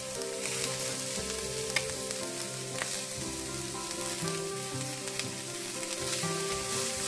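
Diced carrots, runner beans and onion sizzling in a hot stainless steel pan as the carrots are added and stirred in, with a few light utensil clicks.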